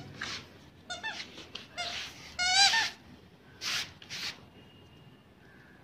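A dog's rubber squeaky toy being chewed: several short squeaks in the first two seconds, then one longer warbling squeak about two and a half seconds in, the loudest of them. Two short hissy puffs follow near four seconds.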